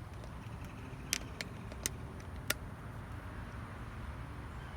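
Handling noise from a camera being set up: a few sharp clicks and taps over a low, steady rumble.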